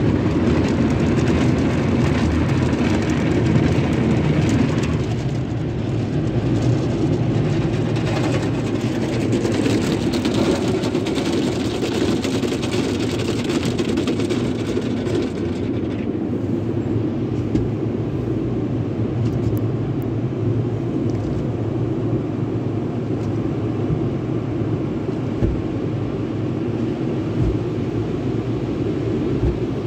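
Sonny's tunnel car wash heard from inside the car: water spraying and brushes washing over the body over the steady rumble of the wash machinery. About sixteen seconds in, the hiss of the spray drops away, leaving the low rumble and a few thumps.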